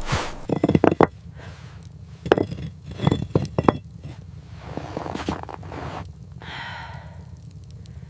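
A series of irregular knocks and scrapes, with a short hiss about six and a half seconds in, over a steady low rumble.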